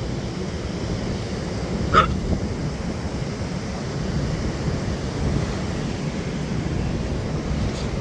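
Steady wind buffeting the microphone over surf, with a single short dog bark about two seconds in.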